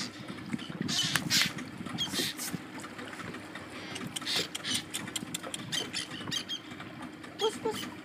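A flock of small white seabirds perched on a rock calling in a busy, irregular chatter of short high squeaks and chirps, over a low steady hum.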